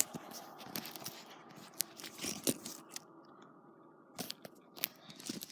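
Fidget spinner being handled: scattered sharp clicks and rustles, about half a dozen over a few seconds, as it is spun and caught.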